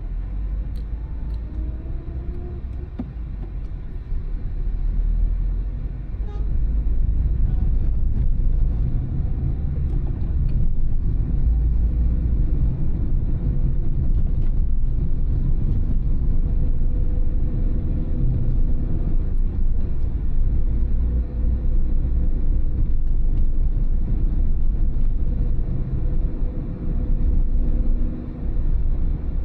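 Car driving on town roads: a steady low rumble of engine and tyres, getting louder about five seconds in as it picks up speed, with the engine note rising and falling through the gears.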